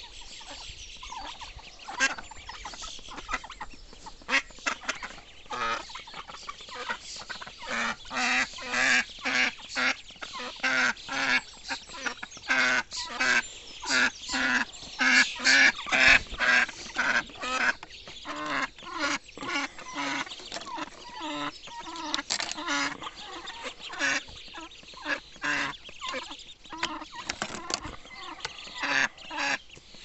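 A flock of domestic ducks with ducklings quacking over and over in quick runs of short calls, busiest and loudest around the middle.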